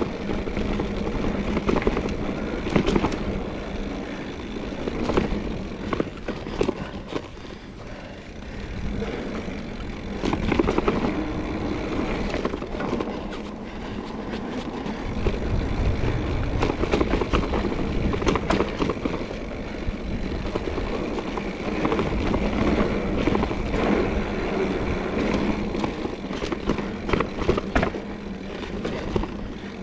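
Trek Fuel EX 5 full-suspension mountain bike rolling over a rough dirt trail: steady tyre noise with frequent rattles and clicks from the bike.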